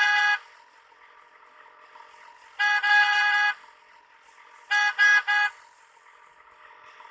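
High-pitched vehicle horn honking in separate blasts: one ending just after the start, a longer double honk about two and a half seconds in, then three quick toots about five seconds in.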